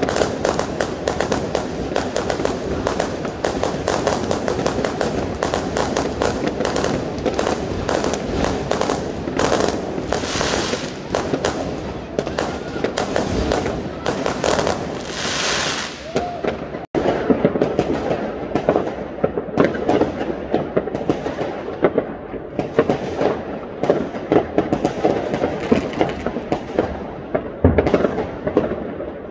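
Fireworks going off all around: a dense, rapid crackle of bangs and cracks, with two longer hissing bursts. After a break about two thirds in, separate loud bangs follow one another a fraction of a second apart, each echoing away.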